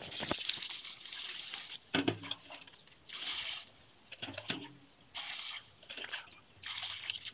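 Water poured from a plastic jug onto river snails in an aluminium pot, splashing over the shells, then the jug dipping into a plastic basin to scoop more water, in several short splashes.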